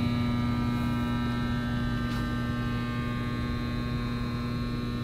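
Steady electrical mains hum: a fixed low tone with a thin, high buzz above it, unchanging throughout.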